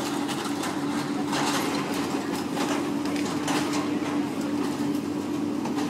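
Excavator and skid-steer loader engines running in a steady drone, with scattered clanks and crunches of metal and rubble debris being worked.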